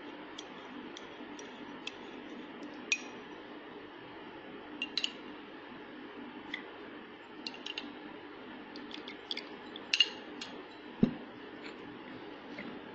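Light clinks of a metal spoon against a glass tumbler, a dozen or so scattered taps, as syrup is spooned into the glass. A dull thud comes about eleven seconds in.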